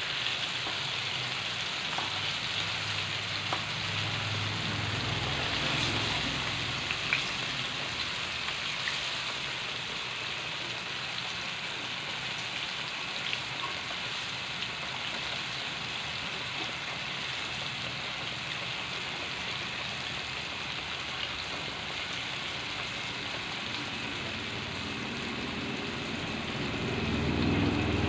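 Breaded chicken pieces deep-frying in hot oil in a wok: a steady crackling sizzle, with a few light clicks of a metal utensil against the wok in the first several seconds. A low hum swells near the end.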